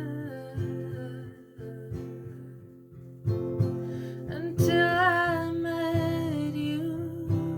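Acoustic guitar strummed and picked in a slow folk-pop accompaniment. A single held, wavering sung note comes in about five seconds in.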